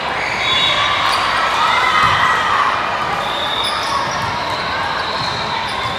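Gym sounds of a volleyball rally: sneakers squeaking on the court floor and dull thumps of the ball, with voices calling out in the background.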